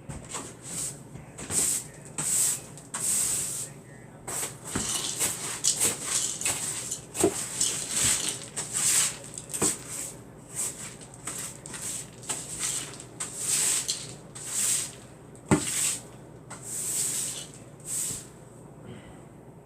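Refrigerator being cleaned by hand: a long, uneven run of short hissing scrubbing strokes, with a few sharp knocks of things being set down or bumped.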